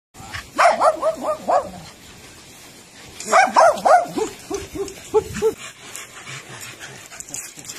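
A dog barking in quick, high yipping runs: two bouts about two and a half seconds apart, the second followed by a few fainter, lower yips.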